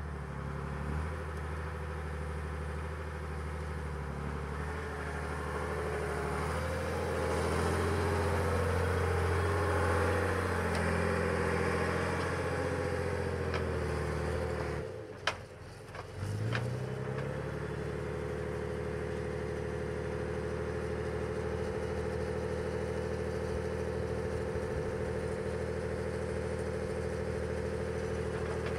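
Freightliner Unimog FLU-419's diesel engine running, its pitch rising and wavering under load for several seconds. About halfway through the sound drops away briefly with a click, then the engine comes back up and runs steadily.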